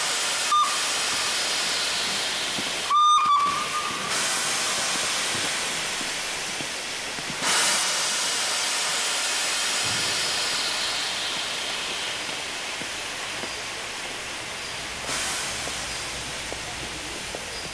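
Soviet FD-class steam locomotive letting off steam, a steady hiss that slowly fades, with fresh surges of hiss about seven and fifteen seconds in. A short high tone sounds about three seconds in, the loudest moment.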